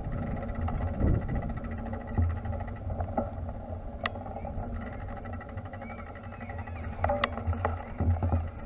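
Wind rumbling and buffeting on the microphone of a moving camera, in uneven gusts, with two sharp clicks about four and seven seconds in.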